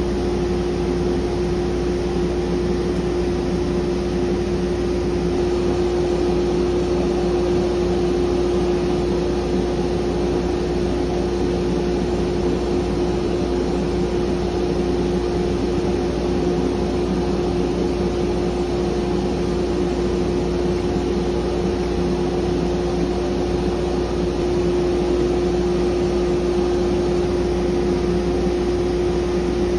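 Workshop machine running steadily: an even electric-motor hum with one strong steady tone over a noise of moving air.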